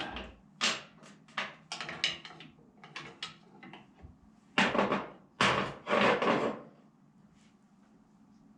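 Metal knocks and clunks from work on a car's rear hub and half shaft, likely from tightening a hub puller. There is a run of short strikes, then two louder, longer grating bursts about halfway through.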